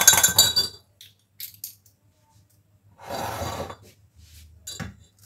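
Metal hand-press lemon squeezer clinking and ringing against a glass tumbler at the start, then a few light clicks and a short noisy burst about three seconds in, as lemon halves are pressed into the glass.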